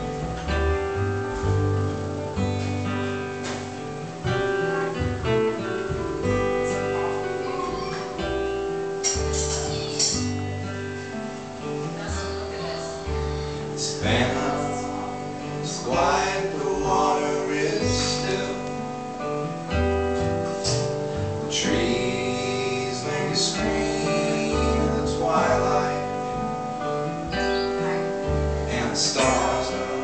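Live acoustic folk music: strummed acoustic guitars over plucked upright double bass notes, with a man's voice singing from about nine seconds in.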